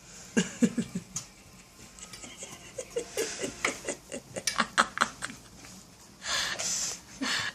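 A person laughing softly in short, quick bursts, with two breathy, airy laughs near the end.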